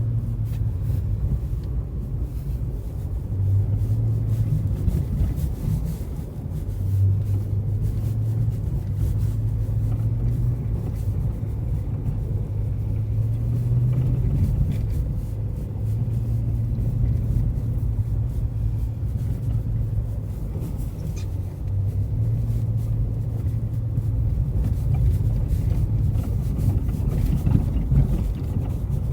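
Car on the move: a steady low rumble of road and drivetrain, with a hum that comes and goes and faint scattered clicks, a noise that the owner puts down to the suspension.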